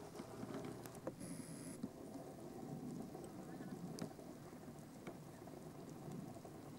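Faint outdoor background noise, a low steady hiss and rumble with scattered light clicks, and a brief high thin chirp about a second in.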